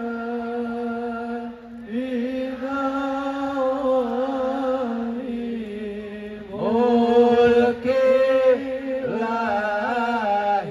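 Male voice chanting a sholawat, the Islamic devotional song in praise of the Prophet, sung slowly into a microphone over a PA system. The phrases are long held notes with ornamental turns, over a steady low note held beneath, and the singing gets louder about two-thirds of the way through.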